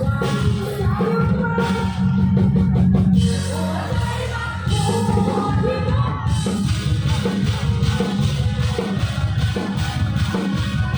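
Live luk thung band music with a steady drum beat and a woman singing.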